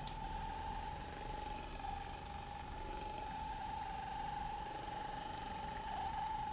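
Percussive massage gun running, pressed against the leg: a steady motor whine with a fine rapid flutter, its pitch dipping slightly a couple of times.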